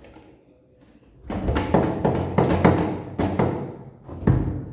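A run of heavy knocks and thuds, several strikes over about three seconds starting a second in, as parts of a top-loading washing machine's spin mechanism are knocked on during its removal.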